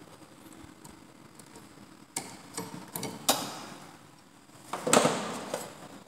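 Metal hand tools and copper tubing clinking and knocking on a workbench as they are handled: a few sharp clicks about two to three and a half seconds in, then a louder clatter around five seconds.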